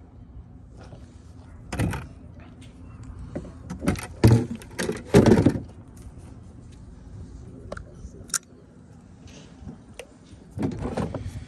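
Irregular knocks, bumps and rattles of fishing gear and a handheld phone being moved about in a small plastic boat, with a cluster of louder clattering about four to six seconds in and a sharp click near the end.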